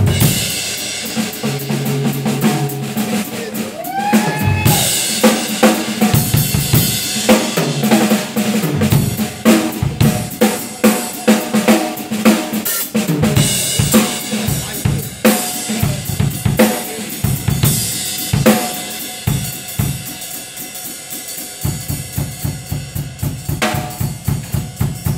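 Live rock band: a drum kit played hard and busy, snare and bass drum to the fore, with electric guitar and bass guitar notes over it. Near the end the drumming becomes a fast, even beat over a held low note.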